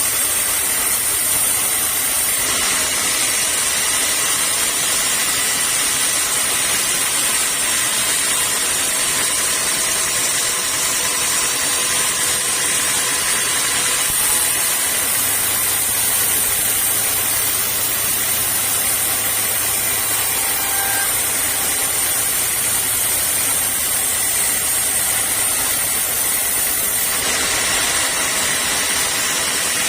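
Sawmill machinery running steadily: a continuous mechanical hiss with a faint high whine, and no distinct cutting strokes.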